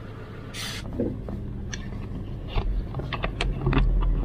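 A thin electrical wire being pulled and handled against plastic dashboard trim. A short rustling scrape comes about half a second in, then scattered light clicks and taps.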